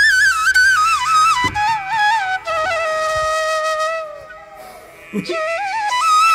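Background music: a single ornamented melody line with wavering notes, stepping down in pitch, dropping quieter for about a second around four seconds in before picking up again.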